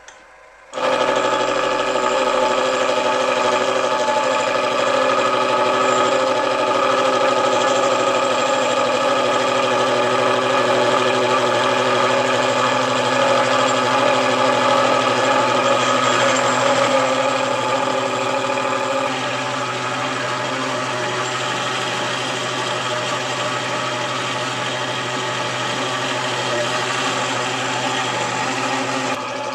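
Bench milling machine switching on about a second in and running steadily, its gear cutter taking a half-depth cut to form a tooth in a gear blank held in a dividing head. The sound gets somewhat quieter a little past halfway.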